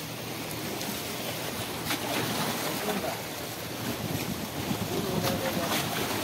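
Small waves washing and splashing against shoreline rocks, with wind buffeting the microphone.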